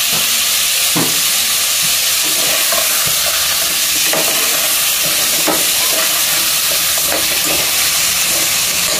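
Prawns sautéing in a pot with onion and tomato, sizzling steadily, while a ladle stirs them and knocks against the pot a few times.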